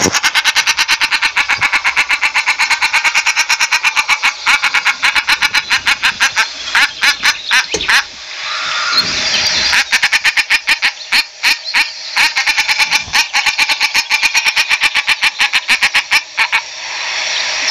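Common shelducks calling: a fast run of repeated short call notes, about ten a second, broken by brief pauses partway through and near the end.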